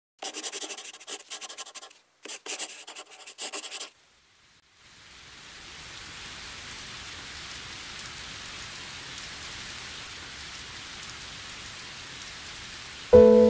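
Pencil scratching on paper in quick strokes for the first four seconds, in two bursts with a short break between. A steady even hiss then fades in, and music begins with a held chord just before the end.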